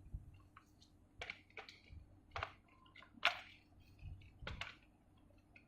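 Light plastic clicks and taps from Dyson V10 vacuum parts being handled, a handful spread irregularly, the sharpest about three seconds in.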